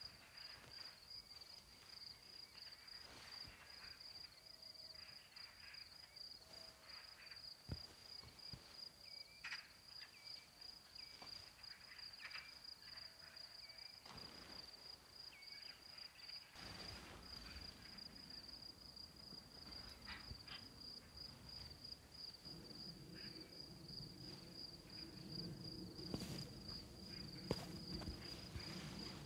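Crickets chirping: a fast, steady, high-pitched trill that never stops, with scattered light knocks. A low rustling noise comes in about halfway through and grows louder near the end.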